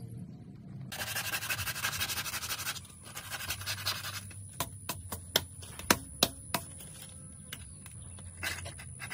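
Sandpaper and a small blade rasping and scraping against a turned wooden piece on a lathe, a dense rasp for about two seconds. A run of sharp clicks and taps follows, over a faint low hum.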